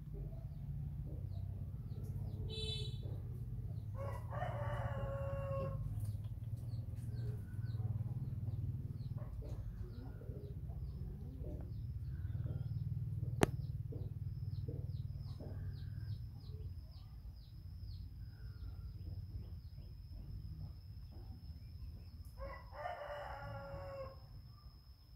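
A rooster crowing twice, each crow about two seconds long: once about four seconds in and again near the end, over a steady low hum. A single sharp click falls midway.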